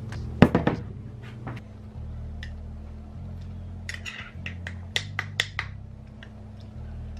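Metal spoon clinking and tapping against a glass mason jar: a cluster of sharp knocks about half a second in, then a quick run of clinks a little after four seconds in.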